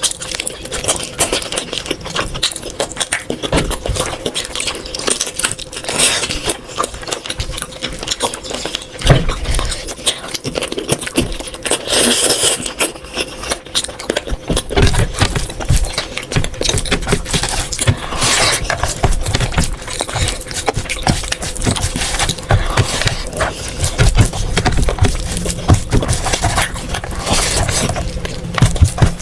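Close-up eating sounds: a dense run of chewing and mouth clicks mixed with scrapes of food being gathered from a plate.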